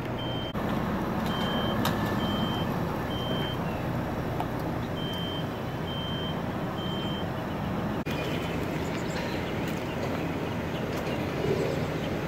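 Backup alarm of a reversing vehicle beeping, short high beeps less than a second apart, over a steady engine rumble. The beeping stops about eight seconds in.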